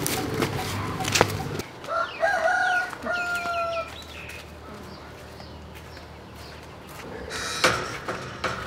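A rooster crowing once about two seconds in: a call that rises and then ends on a held note. Before it there is rustling and a sharp knock about a second in, and there is brief rustling near the end.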